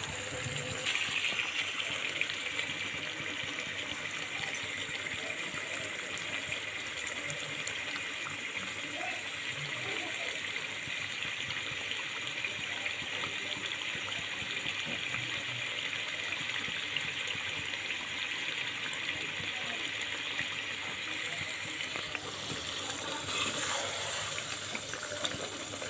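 Chicken masala curry simmering in a steel kadhai on a gas stove: a steady bubbling hiss. Near the end a ladle stirs through it with light scrapes and clicks.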